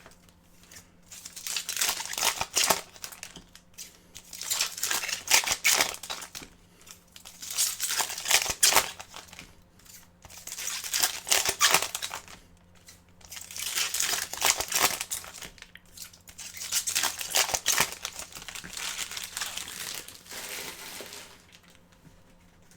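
Foil trading-card pack wrappers crinkling and tearing as hockey card packs are ripped open one after another, in about seven bursts roughly three seconds apart.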